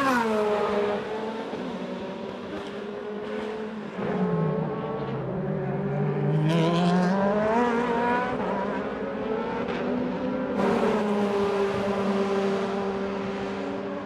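2012 BMW M3 DTM race car's V8 engine at racing speed: it sweeps past with a falling pitch at the start, drops in revs about four seconds in and then climbs back up as it accelerates. The sound changes abruptly about four and ten and a half seconds in.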